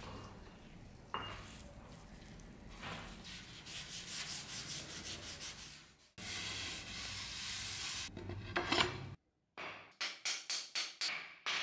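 Gloved hands rubbing a wood finish into a beech axe handle: rough rubbing and wiping strokes in passages that break off abruptly. Near the end comes a quick run of short rubbing strokes, about four a second.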